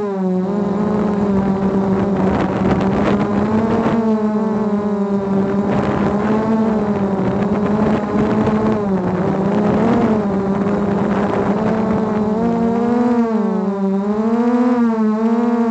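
Quadcopter drone's electric motors and propellers whining steadily, heard through the drone's own on-board camera. The pitch wavers up and down as the throttle changes, with bigger swings near the end.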